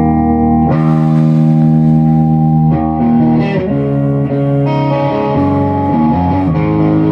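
Electric guitar on its neck pickup, a Firebird-style Rushmore Holy Grail with William Wiggins pickups, played through a 100-watt EL34 tube amp. Ringing, sustained chords, with a new chord struck about a second in, sliding note changes in the middle and further chord changes toward the end.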